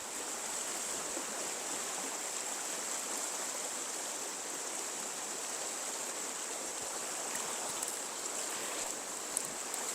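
Fast-flowing river water rushing over a shallow, high-water trout run, a steady even hiss.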